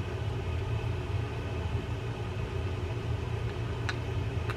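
Steady low mechanical hum, like a fan or other running machine, with two light clicks near the end as the metal reel parts are handled.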